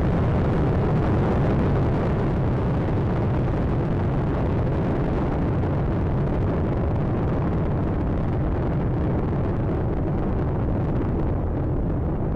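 Space Shuttle Atlantis in early ascent: a steady, deep rumbling rocket roar from its three main engines and two solid rocket boosters. The high end thins slightly toward the end as the vehicle climbs away.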